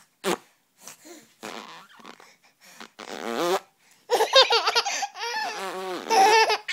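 A farting noise, followed about four seconds in by a baby laughing in a long run of high, breathy giggles.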